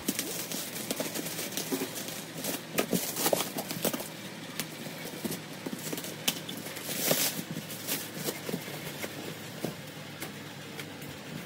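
Clear plastic stretch wrap crinkling and tearing as it is cut and pulled off a cardboard box, in an irregular run of sharp crackles and rustles, loudest about three seconds in and again around seven seconds.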